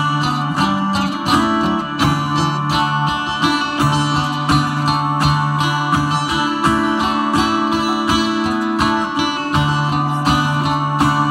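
Acoustic string band playing an instrumental folk tune, guitar strumming a steady rhythm under plucked melody notes, amplified through a stage PA.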